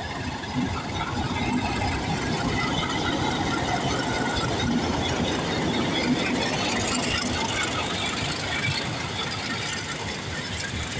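Diesel-hauled passenger train pulling out and rolling past: locomotive engine running and steel wheels running on the rails, a steady continuous rumble.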